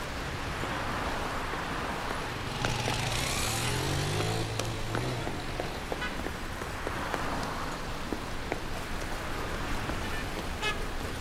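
Street traffic noise, with a car passing close by about three seconds in.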